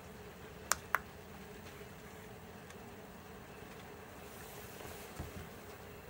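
Vevor 5 kW diesel air heater running with a steady buzzing hum, and two quick clicks about a second in as buttons on its controller are pressed to raise the heat level from 1 to 2.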